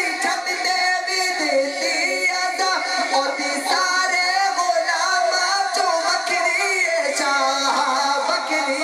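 A man's voice singing a devotional naat melodically into a microphone, with long held and bending notes.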